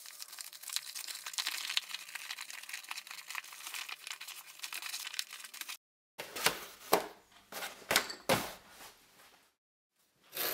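Leather pouch being turned right side out and worked between the hands: a continuous crinkling, rubbing rustle of leather and suede. After a break come a few separate sharp knocks and rustles as the leather is flattened on the bench. Near the end there is a brief scrape as a utility knife cuts along a steel rule.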